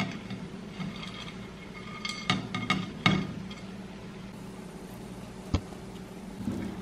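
Silicone spatula scraping fried sausage slices off a glass plate into a non-stick frying pan, with a few clinks of glass and utensil against the pan about two to three seconds in and one sharp tap later on.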